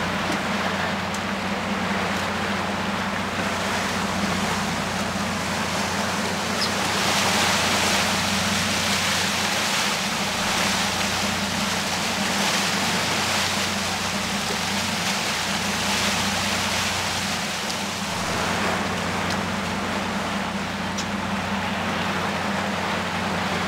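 Fishing boat's engine running steadily in gear, a low even hum, under the rush of water and wind, which swells for a few seconds partway through.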